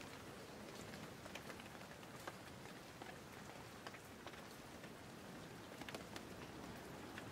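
Faint steady rain, an even hiss dotted with irregular ticks of drops.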